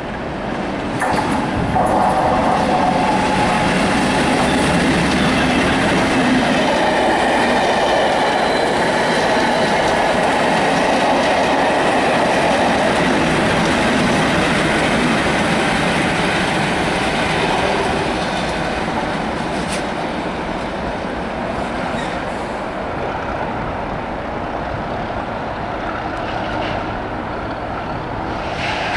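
Two Colas Rail Class 37 diesel locomotives, 37175 and 37421, with English Electric V12 engines, passing with a test train, engines running and wheels on the rails. It grows loud about a second and a half in as the train reaches the platform and eases after about eighteen seconds as it draws away.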